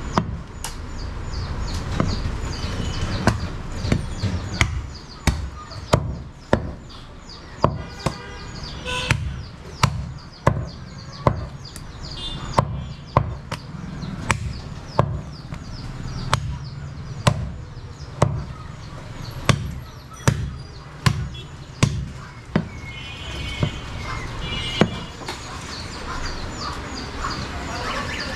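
Butcher's cleaver chopping goat meat and bone on a wooden chopping block: a steady run of sharp chops, about one or two a second.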